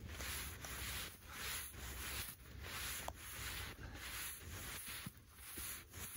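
Faint, soft swishing of snow as arms and legs sweep back and forth while making a snow angel, in an even rhythm of a little over one stroke a second.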